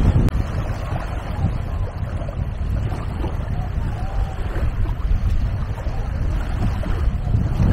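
Wind rumbling steadily on the microphone over small waves lapping at a sandy beach's edge.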